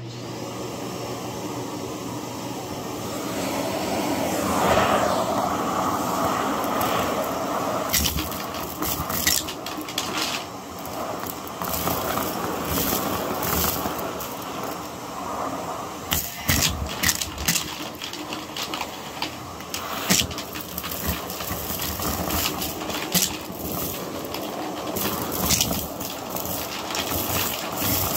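Vacuum cleaner switching on and running over carpet: a steady rush of motor and airflow with frequent sharp crackles and ticks.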